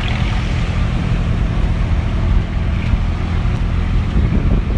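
Tractor diesel engine running steadily as the tractor-trolley drives along. Wind rushes over the microphone on top of the load.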